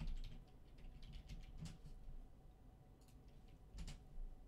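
Faint typing on a computer keyboard: irregular runs of quick keystrokes with short pauses between them.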